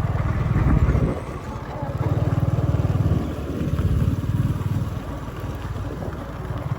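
A small engine running with a rapid, even chugging that swells and eases a couple of times.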